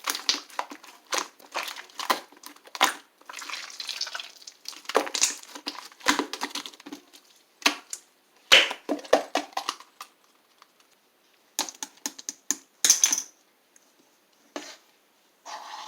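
Blue slime being squeezed and worked by hand, giving a quick run of irregular crackling pops and clicks that thins to a few scattered clicks after about ten seconds.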